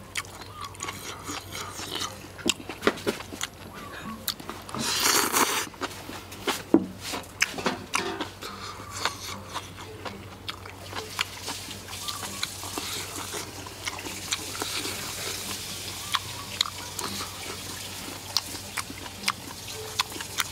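A person eating with chopsticks: close-up chewing and mouth smacks with frequent small clicks. A louder breathy rush comes about five seconds in.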